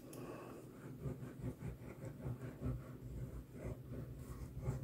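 Faint rustling, scraping and light tapping of card stock being handled as a cut piece is adhered down.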